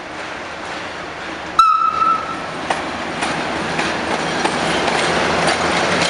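A Sulzer diesel-electric locomotive (Romanian Class 60, Sulzer 12LDA28 engine) gives a short single-tone horn blast about one and a half seconds in. It then passes close by with its engine running, and its wheels clack over the rail joints as it hauls a train of tank wagons, growing louder as it nears.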